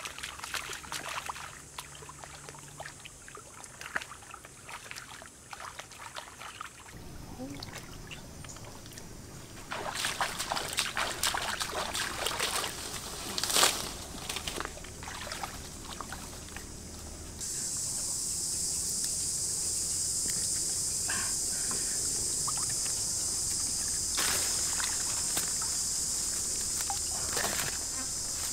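Water splashing and trickling in a shallow muddy stream as a large fish thrashes and a person wades, with the loudest splashes around the middle. From a little past halfway a steady high insect buzz sets in and carries on over the water sounds.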